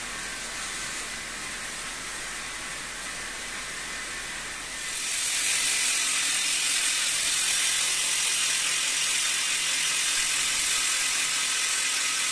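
Handheld electric drill boring a hole into the top of a marble block, a loud, steady, bright grinding that starts about five seconds in. Before it, a quieter steady noise.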